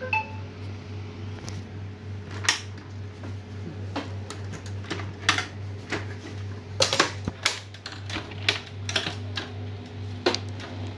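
Scattered, irregular clicks and knocks of plastic parts as the scanner unit of an HP LaserJet MFP M233 laser printer is handled and lifted open, over a steady low hum.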